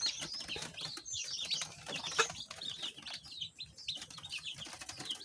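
Newly hatched chicks peeping: many short, high chirps overlapping, with a few soft handling knocks.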